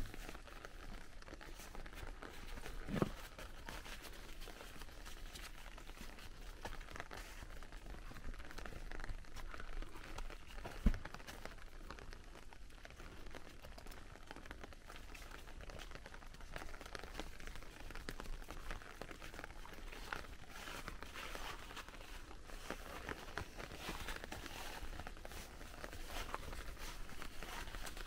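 Footsteps crunching and rustling through fallen leaves on a cobbled path, with a steady run of small crackles. There are two dull low thumps, one about three seconds in and a louder one about eleven seconds in.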